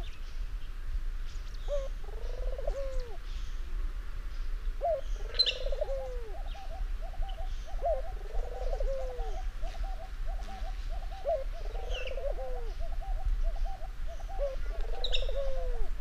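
Barbary (ringneck) dove cooing: five rolling coos, each a short note followed by a longer arched one, about every three seconds, with a quick run of short soft notes between them. A few faint high chirps come in now and then.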